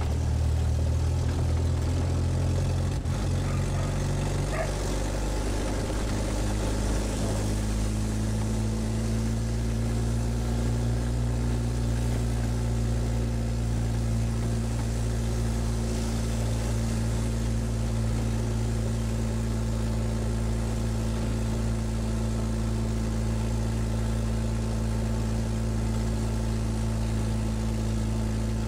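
Škoda 440 Spartak's four-cylinder engine running under way, heard from inside the cabin. Its note rises a few seconds in, then holds steady at an even cruising pitch.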